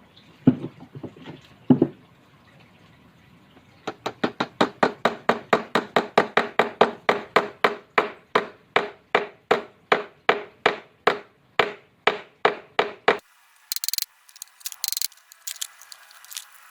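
Two knocks on wood, then a steady run of sharp strikes on wood, about four a second, that stops abruptly. A few short scraping noises follow near the end.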